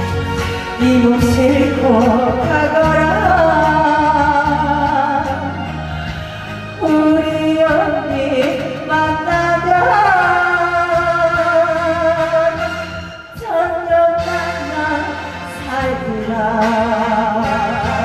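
A woman singing a slow, emotional Korean song with strong vibrato through a headset microphone and PA, over instrumental accompaniment; her voice drops out briefly about two-thirds of the way through.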